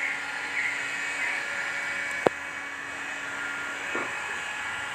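Handheld heat gun blowing steadily with a faint motor whine, heat-shrinking window tint film onto a car windscreen. A sharp click about two seconds in.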